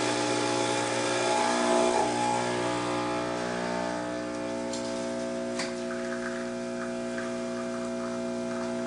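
Bezzera espresso machine's pump running steadily as it pushes water through a triple-basket shot, a steady hum of several tones with a faint click about five and a half seconds in.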